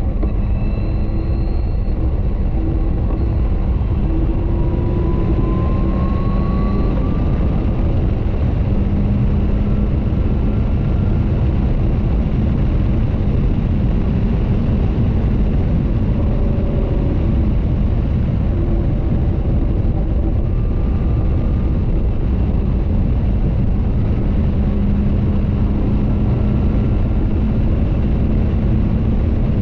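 Caterham 620R's supercharged four-cylinder engine running at speed on track, heard from the open cockpit under heavy wind and road rush, with the engine note rising about five seconds in.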